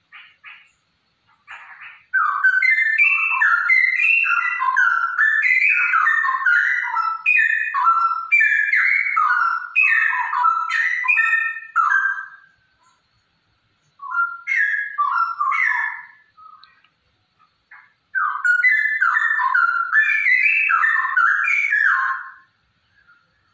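Female straw-headed bulbul (cucak rowo) singing loud, rich, quickly varied warbling phrases. There are three phrases of song, the first about ten seconds long, with short breaks between them.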